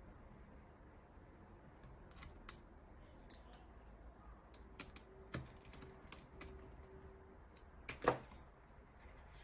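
Quiet, scattered clicks and taps of hands handling the plastic housing and display ribbon cable of a disassembled handheld scan tool, with one sharper knock about eight seconds in.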